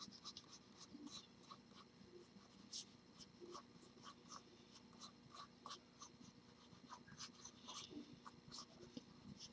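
Pencil lead scratching faintly on drawing paper in many short, light, irregular strokes as a figure is sketched out.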